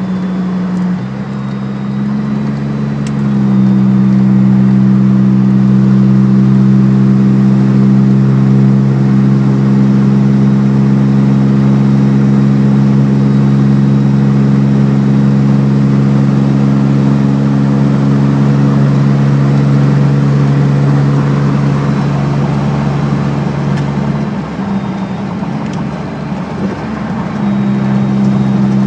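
Engine of a heavy SUV with an upgraded variable-vane turbo, heard from inside the cabin with road noise, pulling under load on the highway. It holds a steady drone, grows louder a few seconds in, and eases off for a few seconds near the end before coming back.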